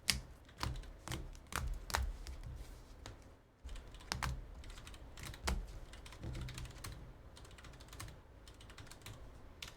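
Typing on a computer keyboard: irregular key clicks with short pauses between runs.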